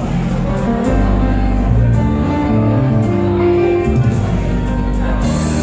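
Music: sustained pitched notes changing every half second or so.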